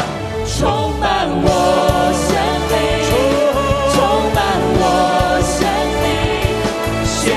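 Christian worship song: voices singing a melody over a band with drums.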